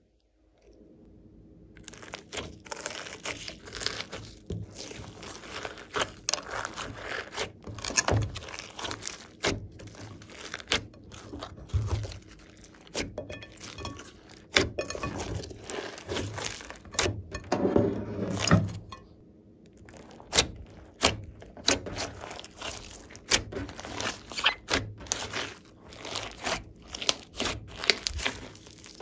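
Slime mixed with clay, floam beads and glitter being kneaded, stretched and squeezed by hand, giving quick irregular clicks and pops. The clicks and pops start about two seconds in.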